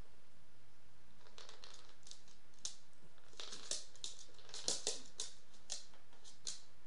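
A small dog's claws clicking and tapping on a wooden floor as it steps and turns. The clicks come irregularly and are busiest and loudest a little past the middle.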